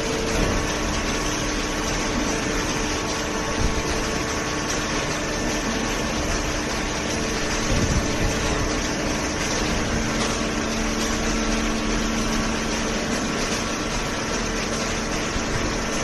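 Hydraulic cardboard (OCC) baler and its feed conveyor running: a steady mechanical hum with a few steady tones.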